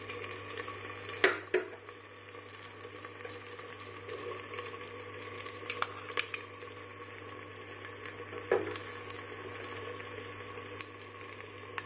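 Onion, tomato and vegetables frying in oil in a clay pot, a steady sizzle. A few sharp knocks come as chopped carrots and green beans are tipped in from a bowl.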